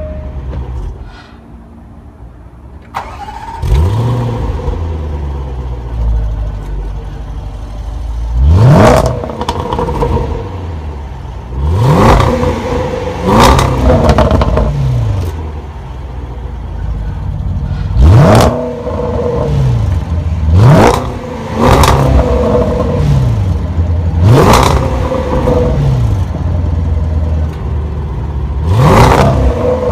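2016 Range Rover Sport SVR's 5.0-litre supercharged V8 starting up about three seconds in with a flare of revs, then idling and revved in seven quick blips. It is heard from behind at the quad exhaust tips, first in normal and then in dynamic exhaust mode.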